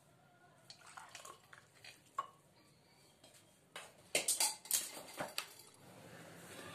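A steel pot and tea strainer clinking faintly against a drinking glass as a ginger decoction is strained, followed by a cluster of louder knocks and clinks about four seconds in as the glass is handled on the table.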